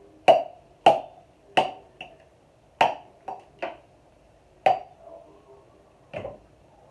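A series of sharp knocks, about nine irregular strikes, each ringing briefly.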